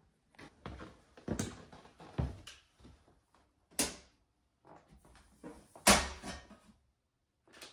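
Scattered clicks and knocks of hands working the metal door and cover of a circuit-breaker panel, the sharpest knock about six seconds in.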